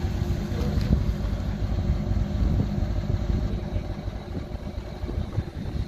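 1993 Nissan's carburetted engine running, louder and uneven for several seconds, then easing off near the end.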